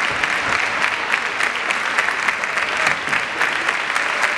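Steady applause from a crowd, many hand claps blending together without a break.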